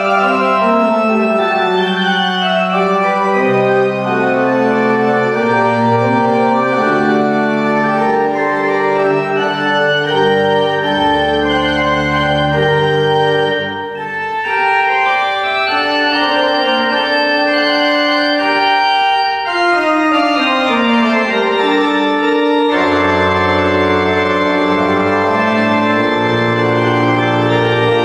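Pipe organ playing sustained chords in several moving voices, with deep pedal bass notes coming in at times. The sound dips briefly about halfway, and a descending line follows later on.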